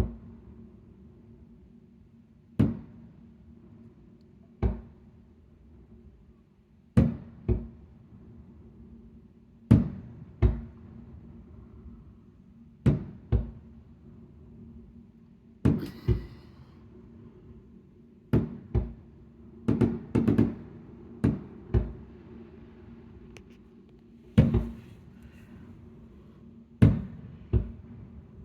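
Aerial firework shells bursting over water, with about twenty sharp booms at irregular intervals, some coming in quick pairs. A longer crackling burst comes about halfway through.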